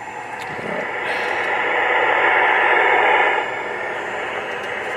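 CB radio speaker hissing with receiver static. It grows louder about a second in, then drops back to a steadier, lower hiss about three and a half seconds in.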